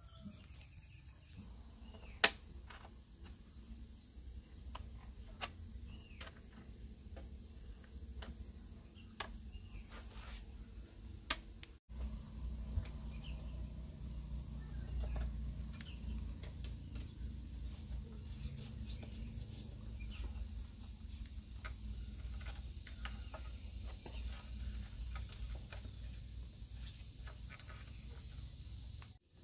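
Insects chirring steadily, with scattered light clicks and knocks and one sharp click about two seconds in. A low rumble grows heavier after a brief break about twelve seconds in.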